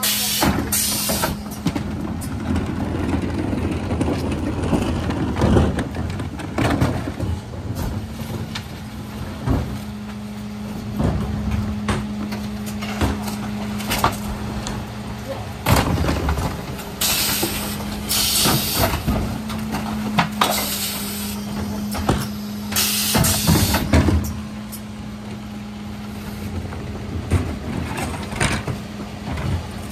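Mercedes Econic refuse truck with a Faun Variopress body, its engine and hydraulics humming steadily while the Zoeller lifters tip wheelie bins. Repeated clattering bangs of bins against the lifter and hopper, with several short bursts of air hissing.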